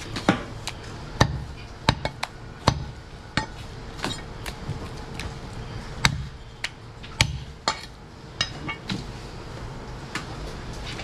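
Heavy butcher's cleaver chopping mutton on a wooden log chopping block: sharp, irregular knocks, about one or two a second.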